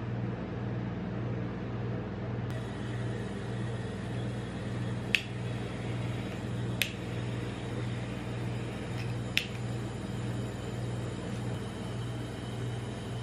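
Steady, pulsing low hum of the rolled-ice-cream cold plate's refrigeration unit, with three sharp clicks about five, seven and nine and a half seconds in from a butane kitchen torch being worked to brown marshmallows.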